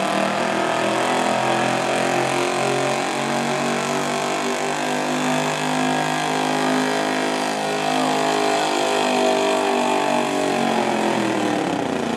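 Square-body pickup truck's engine held at high revs under full throttle while dragging a weight-transfer pulling sled. The pitch falls away near the end as the throttle comes off at the end of the pass.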